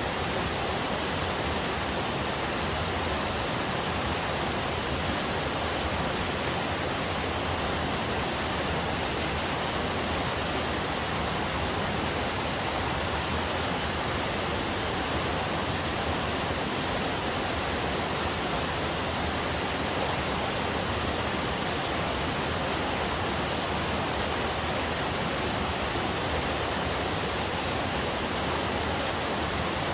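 Waterfall on a forest river: water falling and rushing in a steady, unbroken hiss that neither rises nor fades.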